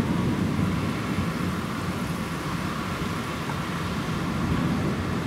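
Thunder rolling in a long, continuous low rumble that eases slightly in the middle and swells again near the end.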